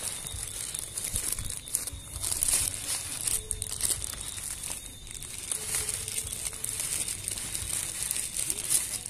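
Thin plastic packaging crinkling and rustling in irregular bursts as a boxed device is slid out of its frosted plastic protective sleeve.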